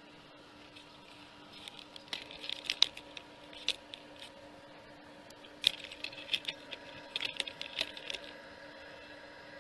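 Two flurries of light clicks and clinks, like small hard objects being handled, over a faint steady hum.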